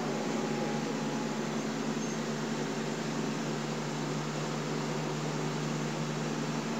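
Kenworth T600's Cummins 350 diesel engine running steadily under way, with a steady low hum and road noise and no change in pace.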